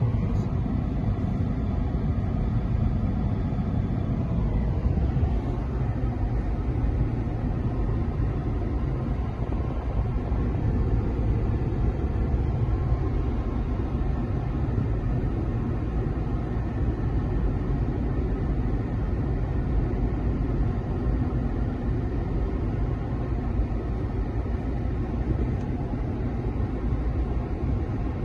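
Steady road and engine noise inside a moving car at highway speed: a constant low rumble of tyres and drivetrain.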